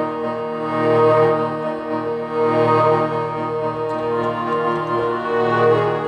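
Slow ambient music of sustained, layered keyboard chords, with a low bass swell rising and falling about every two seconds.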